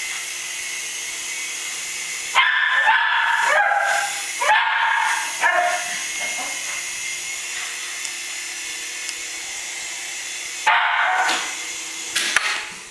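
Cairn terrier barking in short, high bursts, several in quick succession between about two and six seconds in and twice more near the end. Under the barks runs the steady whir of a small toy helicopter's electric motor and rotor, which fades out near the end.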